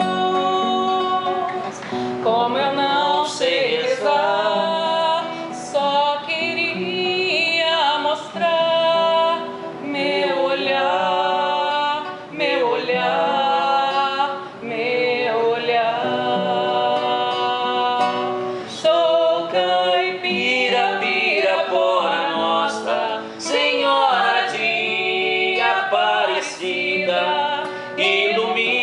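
A woman singing a slow song, accompanied by an acoustic guitar.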